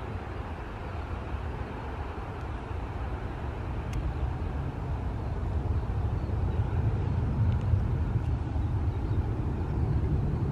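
Steady low rumble of a taxiing Boeing 737 airliner's jet engines at taxi power, heard across the airfield. It grows louder about four seconds in.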